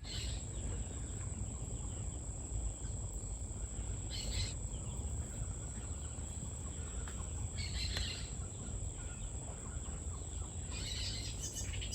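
Outdoor nature ambience: an insect trills steadily on one high note while birds give short calls about every four seconds, over a low steady rumble.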